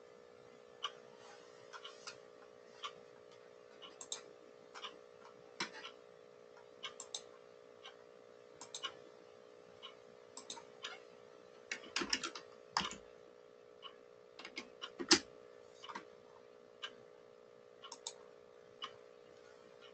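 Scattered, irregular keyboard and mouse clicks over a steady electrical hum, with a denser, louder flurry of clicks about twelve seconds in and one sharp click about fifteen seconds in.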